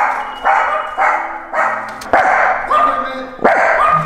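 A dog barking in a loud, close run of about six sharp barks, roughly one every half second.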